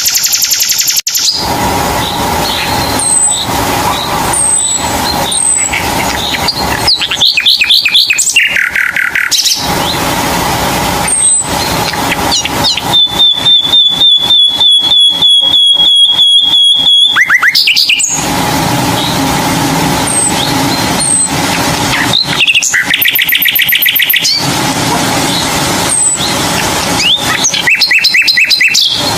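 Birds chirping and trilling, with many short high calls and rapid repeated notes, over a steady background hum.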